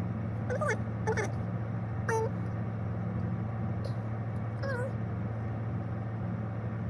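Four short, high calls from a small pet animal, each quickly bending in pitch, spread over the first five seconds. Under them runs the steady low hum of an idling car.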